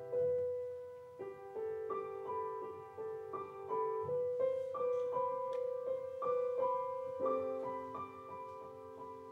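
Grand piano playing a solo interlude of an art song. One note rings at the start, then from about a second in the notes repeat in a steady pulse of roughly three a second.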